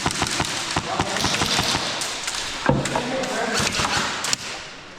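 Airsoft guns firing in rapid, irregular strings of sharp cracks, with BBs smacking against surfaces, mixed with distant shouting.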